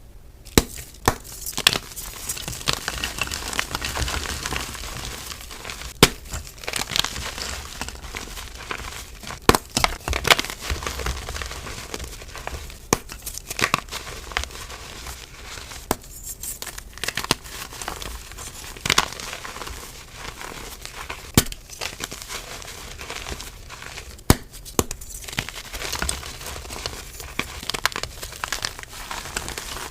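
Soft reformed gym chalk blocks crumbling and crushing under the fingers: a continuous gritty crunching with frequent sharp, irregular snaps.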